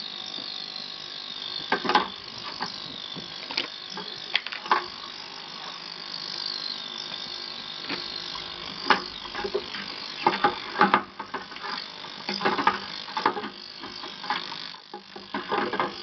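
Ultrasonic cleaner running with a steady buzz while Enya four-stroke model engine parts are moved about in its kerosene bath. Frequent knocks and clicks of the metal parts against the stainless tank, with small splashes, come thickest about two-thirds of the way through.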